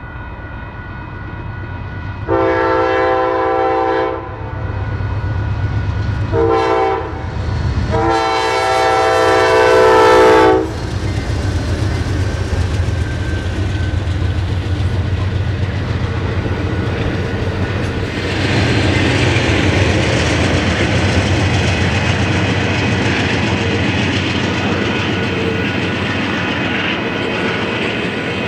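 Siemens ALC-42 diesel locomotive sounding its air horn for a grade crossing: a long blast, a short one, then a longer, louder one, over the locomotive's engine rumble. Then the train's passenger cars roll past with a steady rumble and clickety-clack of wheels on rail joints, growing louder about two-thirds of the way through.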